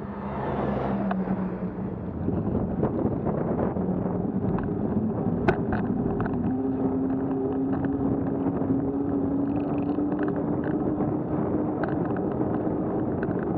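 A road vehicle's engine pulling away from a stop and gathering speed, its note rising slowly and steadily, over road and wind noise on the microphone.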